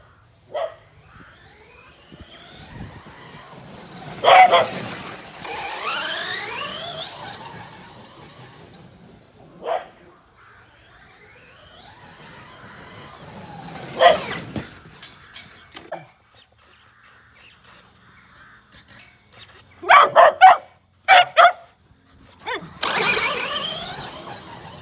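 Bedlington Terriers bark in sharp single barks about four, ten and fourteen seconds in, then in a quick run of barks around twenty seconds. Between them the brushless electric motor of a modified FTX Carnage RC car whines, rising and falling in pitch as it speeds up and slows, with a hiss of tyres on grass.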